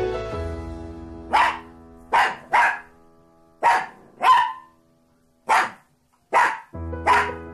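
Small dog barking in about eight short, sharp barks at irregular intervals while play-fighting with stuffed toys. Background music plays underneath, dropping away in the middle and returning near the end.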